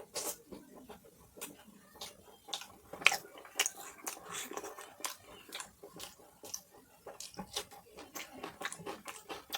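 Close-miked eating sounds: irregular chewing, lip smacks and wet mouth clicks from a person eating mutton curry with puri, one sharper click about three seconds in.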